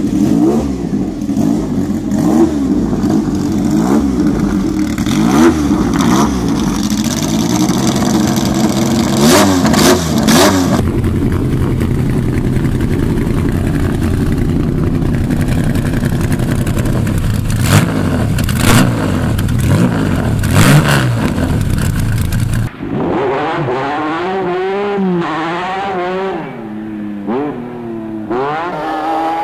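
Carbureted Ferrari Dino V6 in Lancia Stratos cars, revved repeatedly in short blips, the pitch rising and falling with each. About 23 seconds in it switches to a thinner-sounding old recording of a Stratos running up and down through the revs.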